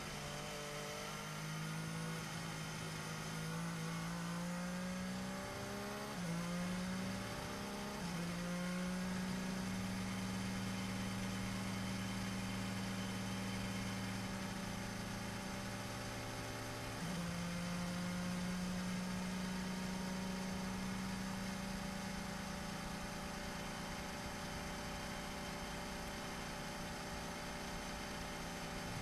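Mercedes Formula One car's 1.6-litre turbocharged V6 hybrid engine running at low revs, heard onboard; its steady note glides and steps up and down in pitch a few times.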